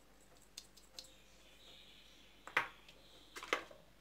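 A few light clicks and taps from a spice shaker being shaken over a glass bowl of eggs, with a faint hiss through the middle. The two sharpest taps come near the end.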